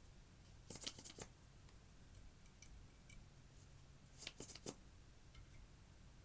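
Faint clicking and crackling in two short clusters, about a second in and again around four and a half seconds, with a few soft ticks between them, from hands working clear slime with eyeshadow mixed in.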